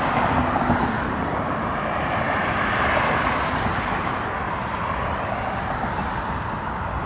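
Jet airliner engines making a steady rushing noise as an aircraft takes off, swelling slightly about three seconds in.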